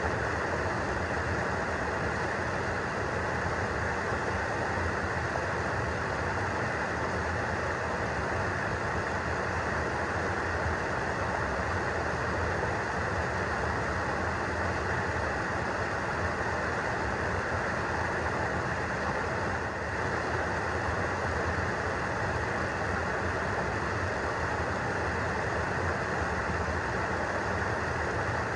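Stream water pouring over a smooth rock chute into a churning pool of white water: a steady, unbroken rush.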